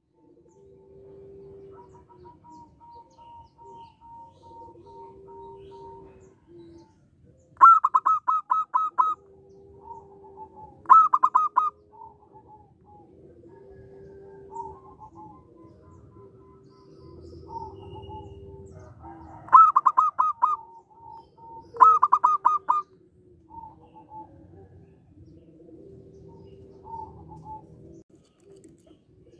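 Zebra dove cooing: four loud bursts of rapid staccato notes, with fainter long, steady notes and soft calls in between.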